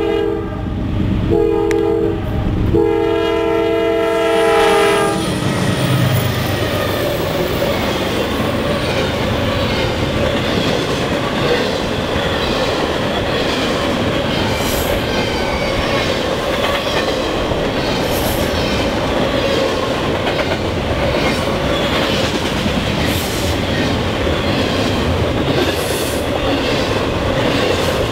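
A Norfolk Southern GE C44-9W locomotive's horn blows for a grade crossing in broken blasts, the last long one ending about five seconds in. Then the double-stack intermodal train rolls past close by, its steel wheels clattering steadily over the rail.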